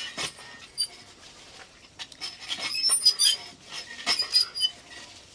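Eating by hand off steel plates: scattered clinks and taps of fingers and bangles on the metal, with short high squeaks mixed in, most of them in the second half.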